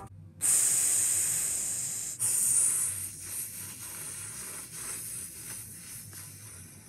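Explosion sound effect: two loud hissing blasts, about half a second and two seconds in, each fading away slowly with a few faint crackles as the second dies down.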